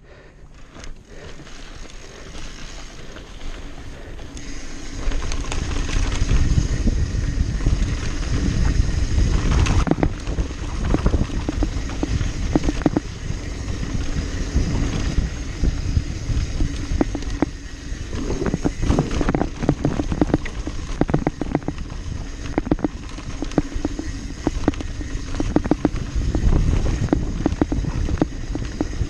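Mountain bike riding fast down a dry dirt and gravel trail: wind buffeting the camera microphone, tyres rolling over loose dirt, and the bike rattling and knocking over bumps. It gets louder over the first few seconds as speed builds, with bursts of rapid rattling in the second half.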